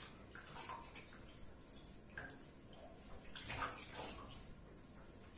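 Faint, intermittent splashing of bathwater and wet rubbing as hands scrub a soapy, wet cat in a bathtub, with a slightly louder splash about three and a half seconds in.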